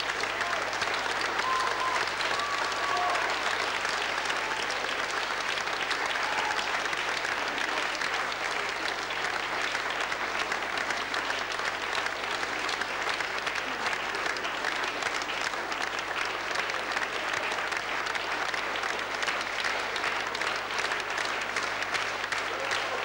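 Sustained applause from a concert audience and the choir, many hands clapping steadily.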